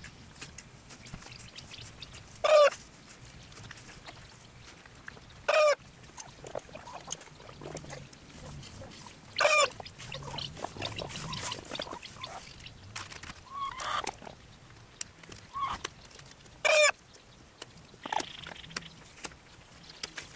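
Backyard chickens clucking, with four loud, short squawks spaced a few seconds apart and softer calls between them.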